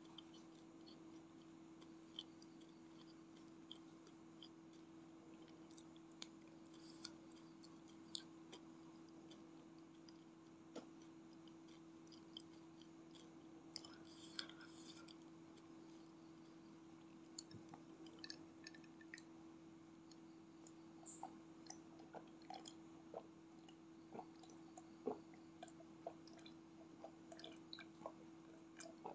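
Faint, close-miked chewing of fried snacks: soft scattered mouth clicks over a steady low hum. Near the end come a few sharper clicks as she drinks from a glass.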